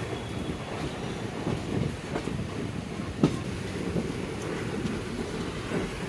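Passenger train coaches running along the track: a steady running noise with scattered clicks of the wheels over the rails, and one sharp knock about three seconds in.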